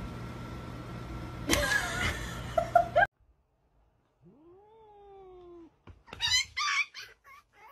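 Cats meowing and yowling: short cries in the first few seconds, then one long meow that rises and then falls about halfway through, then loud, wavering yowls near the end.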